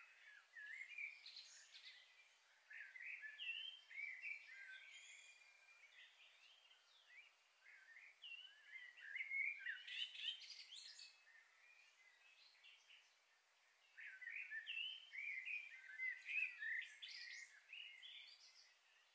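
Faint birdsong: bouts of quick chirps and twittering whistles, each lasting a few seconds, with quieter gaps between them.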